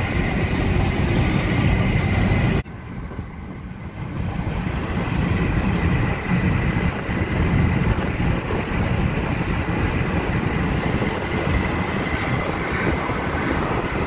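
Car road and engine noise heard from inside the cabin while driving at highway speed: a steady rumble with a faint whine. It drops off abruptly about two and a half seconds in, then comes back softer and builds up again to a steady level.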